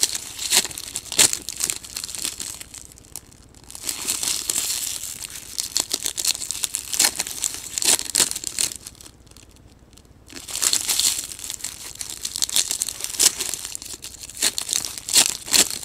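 Foil trading-card pack wrappers being torn open and crumpled by hand: a string of sharp crinkles and rips, with two short pauses.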